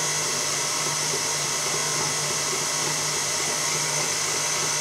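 Electric stand mixer running steadily on its lowest speed, its beater mixing sponge cake batter in a metal bowl.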